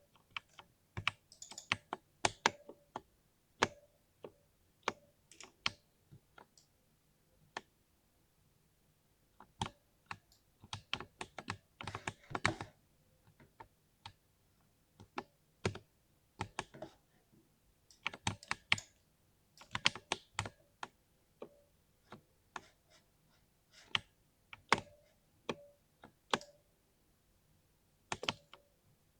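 Typing on a 60% mechanical keyboard: keystrokes clicking in irregular bursts with brief pauses between them.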